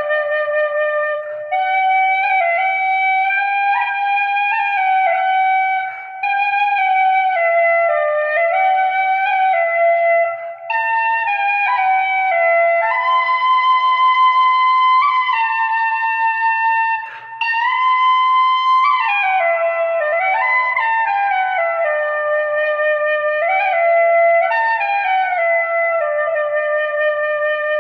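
Celtic flute playing a slow solo melody of held notes, sliding in pitch between some of them, with short breaks for breath every few seconds.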